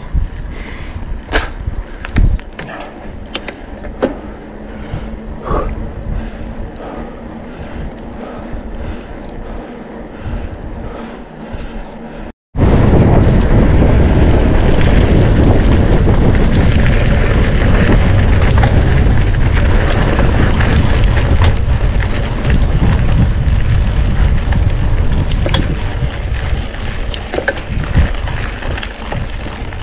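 Mountain bike riding heard from the rider's camera: tyres rolling with scattered clicks and rattles from the bike. After a short break nearly halfway through, a much louder low rumble of wind on the microphone and tyre noise takes over.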